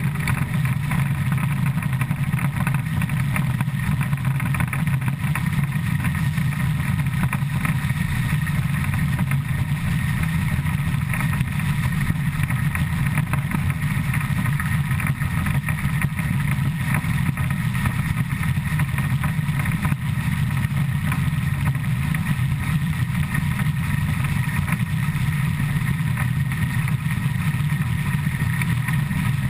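Driving wheels and coupling rods of the steam locomotive ČSD 475.179 running at about 100 km/h, heard from right beside the wheels as a steady, dense rumble with no let-up.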